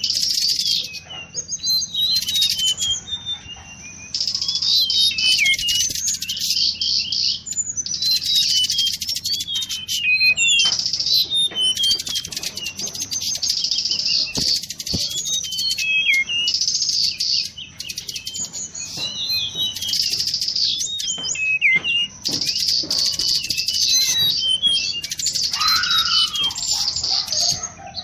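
Bird-lure recording of mangrove blue flycatcher song: rapid, high chirps and twittering trills in long phrases broken by brief pauses. A lower, swooping call comes in briefly near the end.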